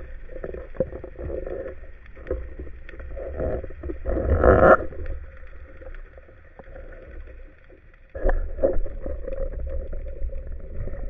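Underwater sound from a speargun-mounted camera: muffled water noise with scattered clicks, swelling into a louder rush of water about four and a half seconds in, then dropping away before coming back abruptly near the end.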